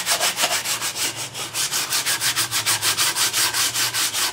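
Coarse 36-grit sandpaper on a hand sanding block scrubbed rapidly back and forth over an epoxy-and-brass repair on a Briggs & Stratton engine block, about five strokes a second. The face is being sanded down flush for the carburetor and exhaust gaskets.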